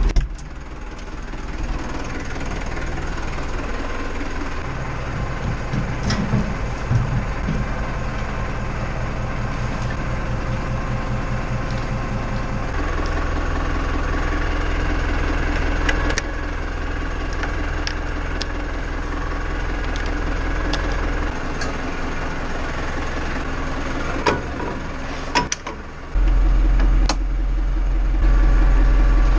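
Tractor engine running steadily, its note and load changing a few times and getting louder near the end, with a few sharp clicks.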